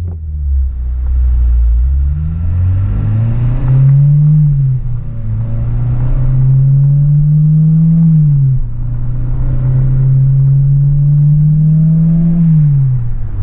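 Car engine accelerating hard through the gears: the pitch climbs steadily in each gear and drops at each shift, about 5, 9 and 13 seconds in.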